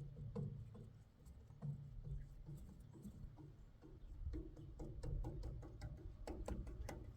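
Faint instrumental music, with a quick run of sharp clicks or taps near the end.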